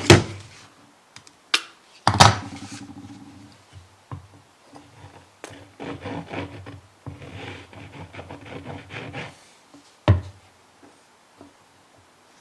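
Wooden pen-blank pieces being handled on a workbench during glue-up: a few sharp wooden knocks as pieces are set down, with longer stretches of rubbing and scraping between them.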